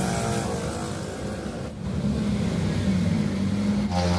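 Highway traffic: motor vehicle engines running past, with the engine note rising and falling.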